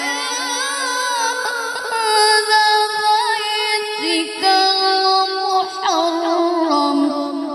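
A boy reciting the Quran in the melodic tilawah style into a microphone, amplified through a sound system: one long, ornamented melismatic phrase of held, wavering notes without a break, the pitch stepping between held tones.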